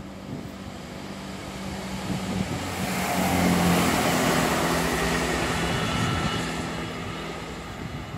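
Networker Turbo diesel multiple unit passing on the main line: its engine hum and wheel-on-rail rush swell to a peak about halfway through and fade as it moves away.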